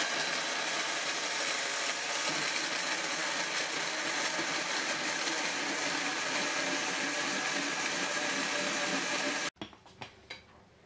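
Countertop blender running steadily at full speed, puréeing whole tomatoes; the motor and chopping noise cut off suddenly about nine and a half seconds in.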